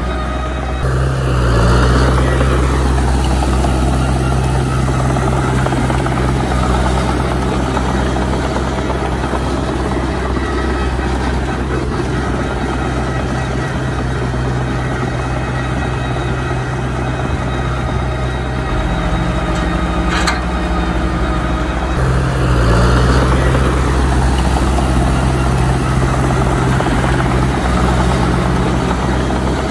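Heavy diesel engine running steadily with a low, even hum, swelling a little about two seconds in and again about twenty-three seconds in.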